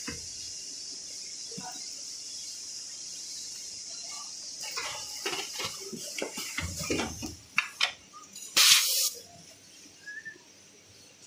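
Plastic film on facial tissue packs crinkling and crackling as the packs are handled, over a steady high hiss from a tissue packing machine. A short, loud hiss comes about nine seconds in, after which the hiss drops away.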